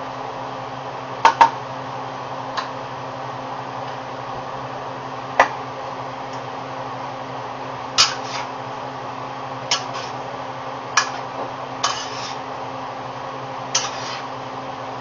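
Metal tongs clanking against a stainless steel sauté pan as spaghetti is tossed, about nine short, sharp clanks at irregular intervals over a steady background hum.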